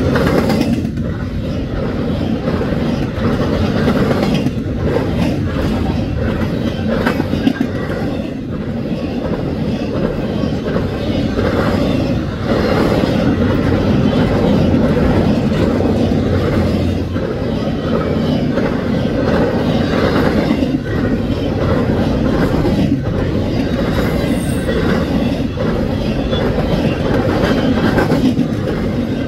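Empty intermodal double-stack well cars of a freight train rolling past close by: a steady rumble of steel wheels on rail, broken by frequent clacks and clanks from the empty cars.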